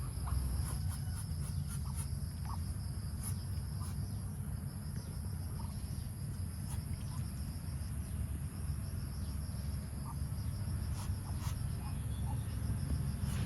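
Insects trilling steadily: a continuous high tone with a rapidly pulsing chirp just below it. Beneath it runs a low rumble, with scattered short clicks and faint brief chirps.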